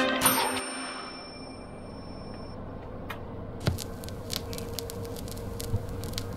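Music dying away, then a resort buggy driving along: a steady low hum from its motor with scattered light clicks and rattles, starting a little after halfway through.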